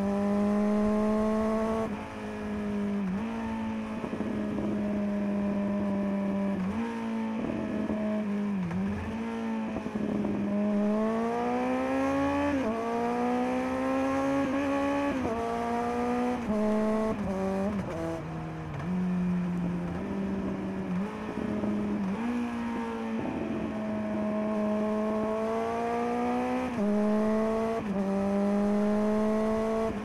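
Kawasaki Z900's inline-four running through a LeoVince LV10 Carbon slip-on exhaust while riding. Stretches of steady cruising alternate with the revs climbing and dropping sharply at gear changes, several times in a row around the middle, with dips where the bike slows.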